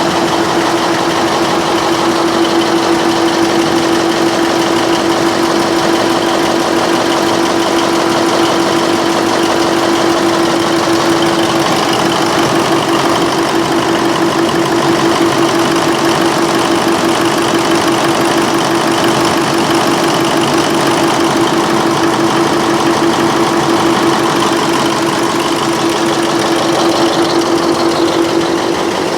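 Generator set's Mitsubishi Fuso 8DC9 V8 diesel engine running steadily at constant speed, with a loud, even drone.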